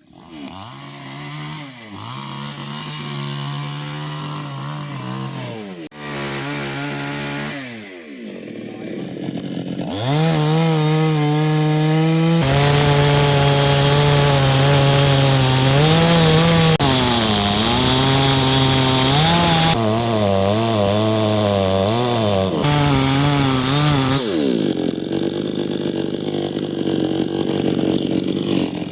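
Chainsaw cutting teak wood, the engine revving up and dipping in pitch as the chain loads in the cut. It runs quieter for the first several seconds, then louder and at full throttle from about ten seconds in.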